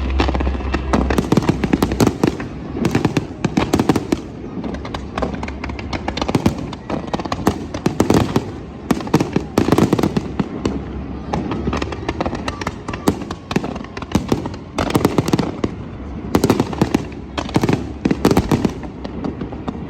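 Fireworks display: a dense, continuous barrage of bangs and crackles, many each second.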